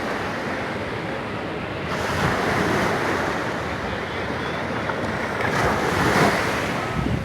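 Ocean surf breaking and washing up the beach in a continuous rush, swelling about two seconds in and again near the end, with wind buffeting the microphone.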